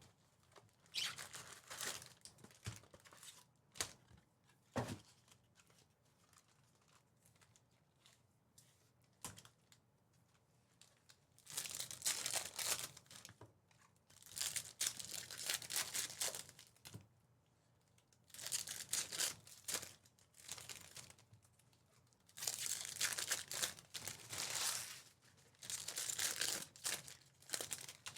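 Trading card pack wrappers being torn open and crinkled by hand, in several bursts of a second or two each, with a few sharp taps in between.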